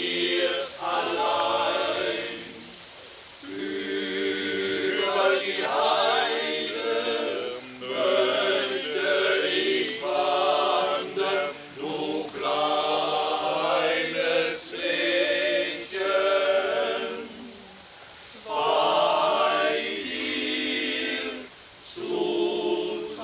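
Men's double-quartet choir singing a German song a cappella in several voices, phrase by phrase, with short breaks between phrases.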